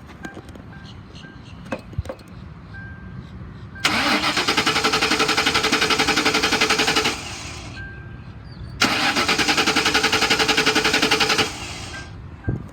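A 2004 Ford Crown Victoria Police Interceptor's 4.6-litre V8 being cranked by its starter twice, each time for about three seconds with a rapid, even pulsing. It turns over but never fires, because a bad fuel pump leaves it without fuel.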